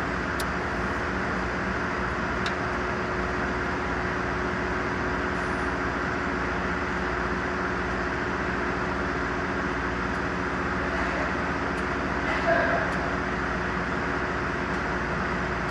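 Mercedes-Benz truck diesel engine running steadily, an even hum with a few constant tones, while it is being checked for an abnormal sound.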